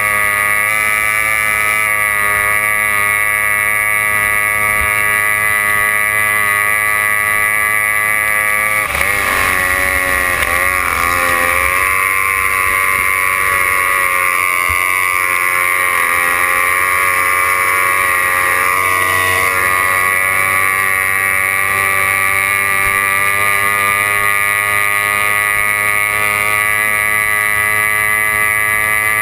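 Racing hydroplane's outboard engine running flat out, heard from on board as a steady high-pitched whine. About a third of the way in the revs dip and waver for a couple of seconds, then pick back up.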